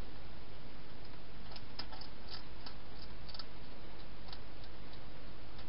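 Wild hedgehog eating at a food bowl: a quick run of sharp chewing clicks, then a few scattered ones, over a steady hiss.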